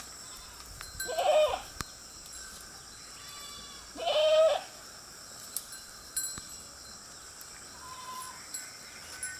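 Goats bleating: two short, loud bleats, about a second in and about four seconds in, with a fainter one between them.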